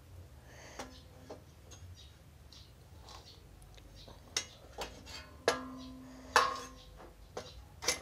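Steel tubes and bars clanking against each other and a bicycle frame as they are handled: a series of sharp metal knocks. The two loudest come in the second half and ring on for up to a second.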